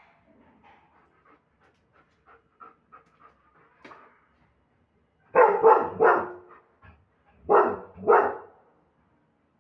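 German Shepherd dog barking loudly: three quick barks about five seconds in, then two more a second later, with only faint short sounds from the dog before them.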